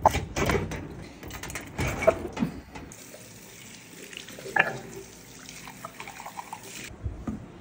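A few knocks and clatter in the first couple of seconds. Then a tap runs water into a washbasin and a ceramic mug, shutting off suddenly near the end.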